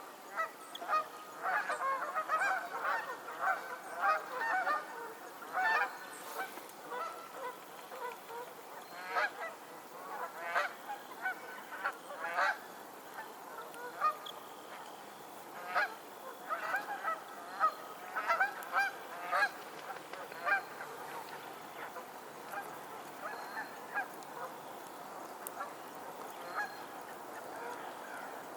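Several geese honking, a busy run of short, overlapping calls that thins out to occasional honks after about twenty seconds.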